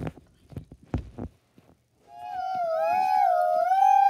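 A few soft knocks, then about two seconds in a child's voice starts a long wavering wail, the pitch slowly rising and falling: a child's vocal imitation of an ambulance siren.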